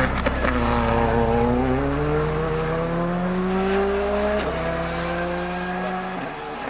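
Rally car engine accelerating hard as the car drives away, its pitch climbing steadily for about four seconds, then levelling off as the sound slowly fades.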